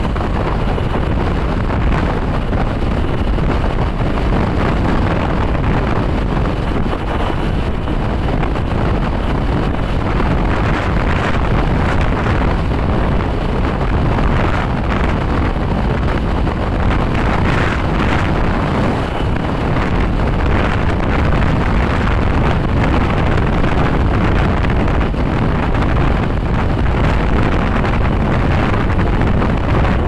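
Wind rushing over the microphone of a camera on a moving vehicle, mixed with road and engine noise: a loud, steady rush with no breaks.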